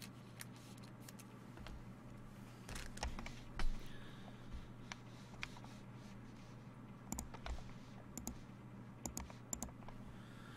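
Scattered light clicks and taps, irregular and a few to the second, the sharpest about three and a half seconds in, over a steady low hum.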